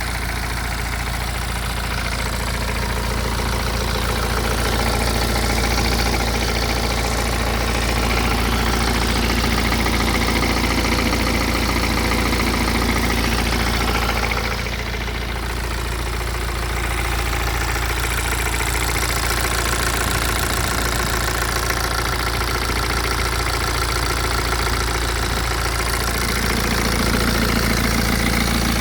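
BMW 116d's N47D20C four-cylinder turbodiesel engine, 220,000 km on it, running steadily at idle with a rattling noise.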